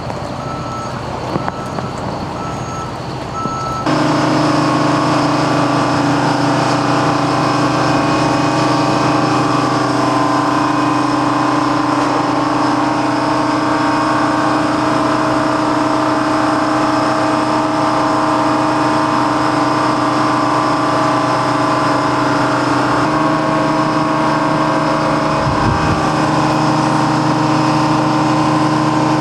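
Repeated warning beeps from heavy machinery, then from about four seconds in a heavy diesel engine running steadily.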